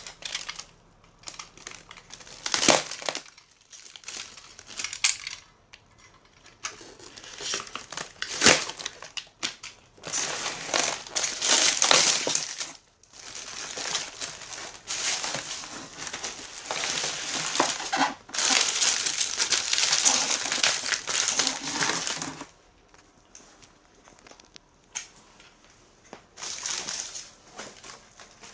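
Packaging being handled: crinkling and crumpling in bursts, with a couple of sharp knocks.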